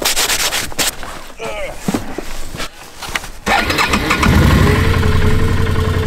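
Can-Am ATV engine starting about halfway through, catching at once and settling into a steady run, after rustling and knocks as the rider gets on.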